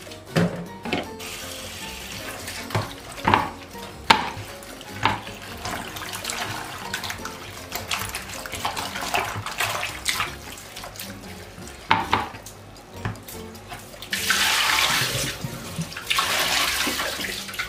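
Kitchen tap running while peppers are washed in the sink, with scattered knocks of produce and bowls being handled. Near the end the water runs hard in two longer gushes.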